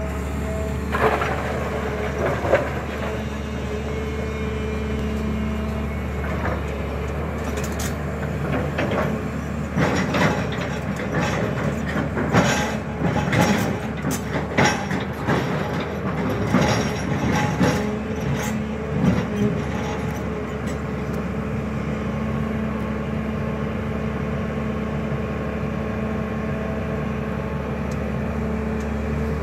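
Diesel engine of a SANY crawler excavator with a long-reach arm running steadily under load. Through the middle there is a run of knocks, clanks and scraping as the bucket digs into soil and stones.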